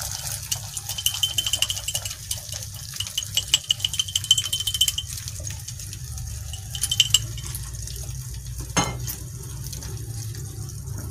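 Beaten egg frying in oil in a small frying pan on a gas burner, sizzling and crackling, the crackles busiest in the first half and again about seven seconds in. A single sharp knock comes near the end, over a low steady hum.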